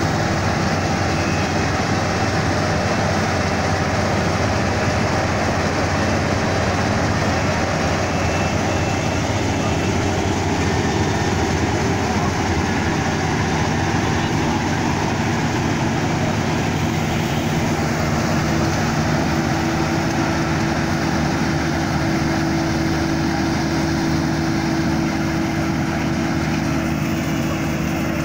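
Kubota DC35 rice combine harvester's diesel engine and machinery running steadily as it drives through the rice crop, cutting. It grows slightly fainter near the end as the machine moves away.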